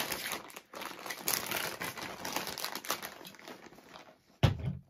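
Plastic packaging crinkling and rustling with irregular crackles as food is served, then one sharp thump about four and a half seconds in.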